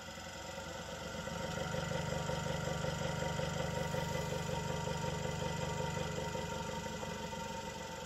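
Speed-controlled Hegner Junior scroll saw running idle with no workpiece, its blade arm stroking up and down in a steady mechanical hum and rattle. It gets louder over the first two seconds, holds steady, then quietens toward the end.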